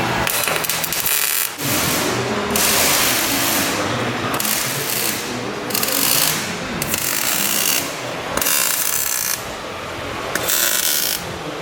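Welder arc crackling in repeated bursts of about a second each, with short pauses between, as new steel is welded into the van's rusted-out steps.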